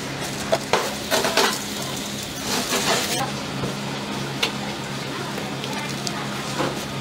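Light clicks and rustling as seasonings and oil are added to cut octopus in a stainless steel bowl, over a steady low hum.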